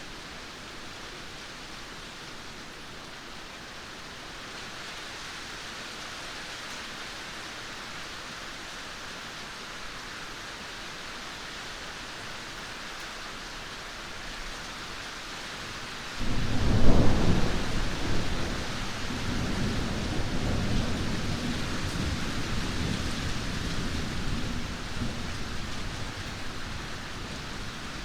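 Steady rainfall hissing, with a thunderclap about two-thirds of the way through: a sudden loud crack followed by several seconds of deep rolling rumble that fades back into the rain.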